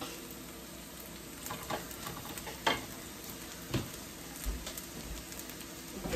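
Shrimp frying in a hot pan: a steady sizzle, with a few short sharp ticks scattered through it.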